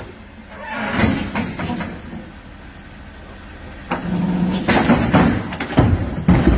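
Outer section of an Airbus A330's wing giving way and crashing onto the apron. A sudden crack about four seconds in is followed by loud metallic clattering, with heavy impacts near the end.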